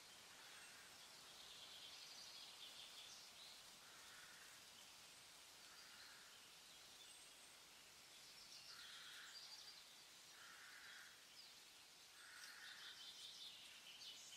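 Faint outdoor ambience with distant animal calls: short buzzy pulsed calls about every two seconds, some lower and some higher trills, the higher ones loudest near the end.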